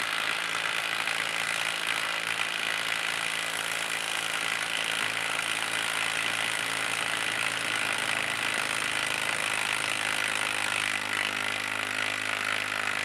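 Ryobi P238 brushless impact driver hammering steadily under load as it drives a long lag screw into a wooden stump, without a break.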